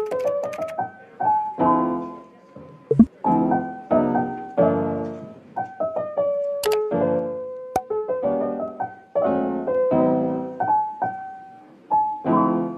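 Background piano music: a run of chords and single notes, each struck and left to fade, with a few sharp clicks in between.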